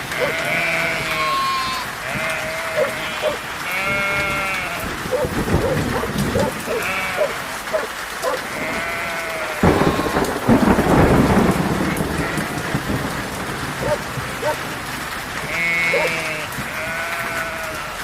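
Steady rain with a flock of sheep bleating over and over, and a sudden loud thunderclap about ten seconds in that rumbles on for a couple of seconds.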